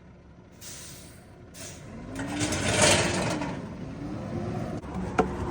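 Concrete pump truck backing down a driveway: short hisses, then a louder noise that swells and fades around the middle with a pitch rising and falling, and a sharp click near the end.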